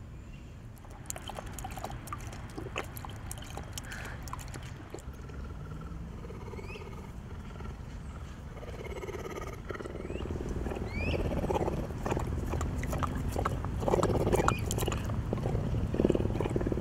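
Cougar lapping water from a metal bowl, a quick run of wet laps that grows louder through the second half.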